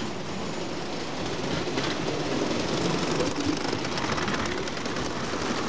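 Vintage tinplate O gauge live-steam train and its tinplate coaches running on tinplate track: a rapid metallic clatter of wheels over the rails that grows louder over the first few seconds as the coaches pass close by.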